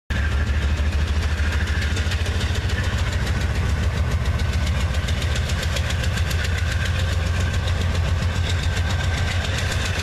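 Diesel-electric freight locomotive passing under load: a loud, deep engine rumble with a rapid, even pulse.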